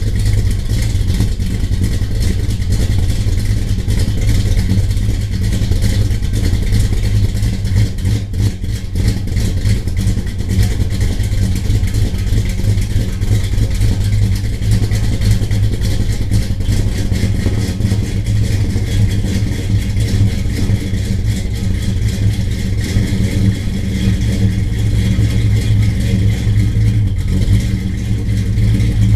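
Car engine running at a steady speed, a loud, low, rough drone that neither rises nor falls.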